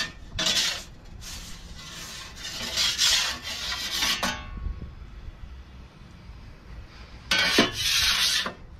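Metal pizza peel scraping across the stone floor of a pizza oven as the bread is turned and lifted, in three rasping strokes: a short one about half a second in, a long one of nearly three seconds, and another near the end.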